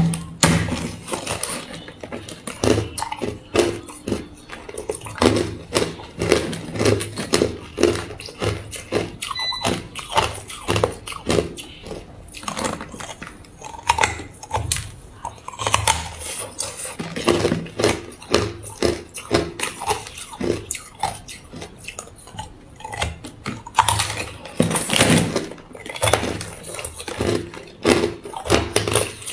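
Hard clear ice being bitten and chewed up close: a dense, continuous run of sharp cracks and crunches. The crunching gets louder for a couple of seconds about three-quarters of the way through.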